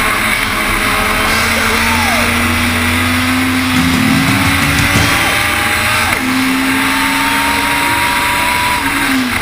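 A Legends race car's engine running hard at speed, with wind and road noise around it. Its note climbs slowly, drops at a gear change about six seconds in, climbs again, and falls off near the end.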